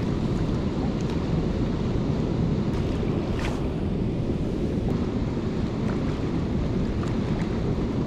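Steady rush of water churning out below a dam's outflow: a constant, low, even roar.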